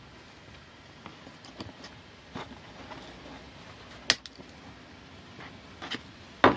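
Diagonal-cutting nippers snipping the protruding ends of metal welding staples embedded in a plastic cowl. They make sharp snaps, loud ones about four seconds and six and a half seconds in, with fainter ticks in between.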